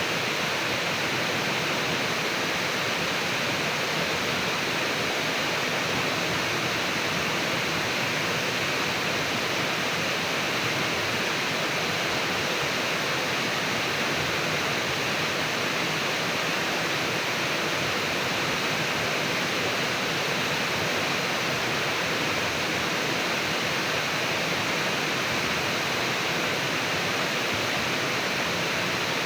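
River current babbling: a steady, unbroken rush of flowing water.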